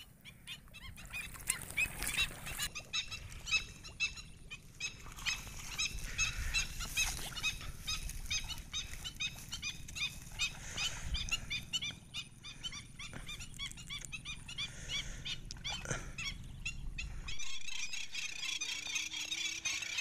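Black-winged stilts calling: a long, even series of short, sharp high notes, several a second, which turns into a denser, higher chatter about three seconds before the end.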